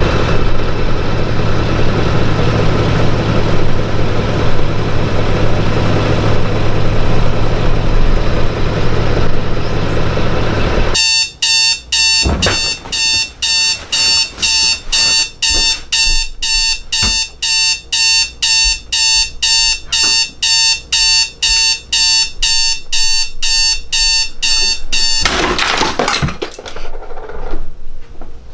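A steady, loud noise with a low hum cuts off suddenly about eleven seconds in. An electronic alarm clock then beeps about twice a second for roughly fourteen seconds before stopping, followed by a brief rustling burst.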